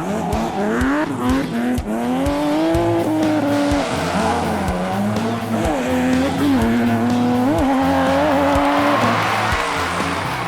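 Engine sound effect revving up and down with a wavering pitch, over background music with a steady beat.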